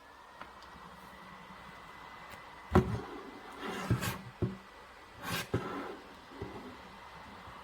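Small USB desk fan running: its motor whine rises as it spins up at the start, then holds steady with a light airflow hiss. Several knocks and bumps of the fan being handled come in the middle, the first and loudest a little under three seconds in.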